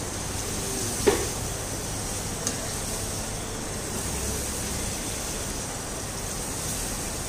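Chicken and masala sizzling in their released oil in a non-stick pot while a wooden spatula stirs them. A single sharp knock of the spatula against the pot about a second in, and a lighter click a little later.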